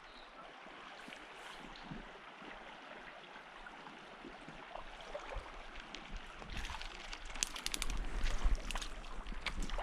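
A small creek running over shallow riffles: a steady rush of flowing water. From about six and a half seconds in, a low rumble of wind or handling on the microphone grows louder, with a quick run of sharp clicks.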